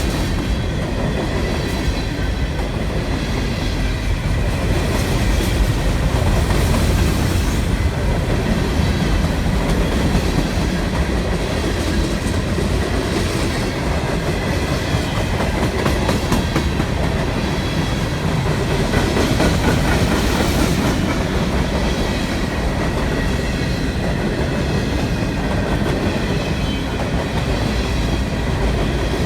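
Freight train cars rolling steadily past: steel wheels rumbling on the rails and clicking over the rail joints, with a faint high ringing from the wheels.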